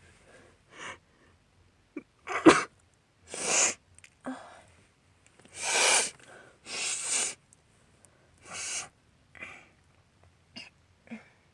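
A woman sneezing and sniffling from allergies: a sharp, loud sneeze about two and a half seconds in, among a string of sniffs and noisy breaths through the nose.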